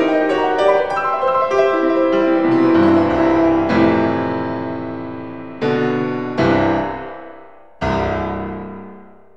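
Solo piano music: a flowing passage of notes, then three chords struck one by one in the second half, each left to ring and die away.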